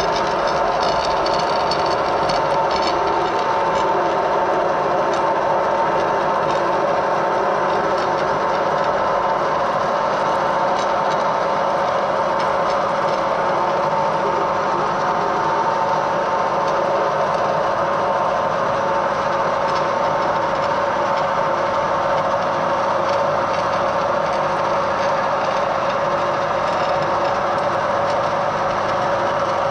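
Edgwick metal lathe running steadily under power, a constant mechanical drone with a few held steady tones.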